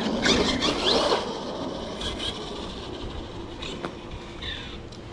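Electric RC car driving fast: the whine of its motor rises and falls over the first second, over the scrabbling of its tyres on rough ground. It then fades as the car gets farther off, with a short falling whine again near the end.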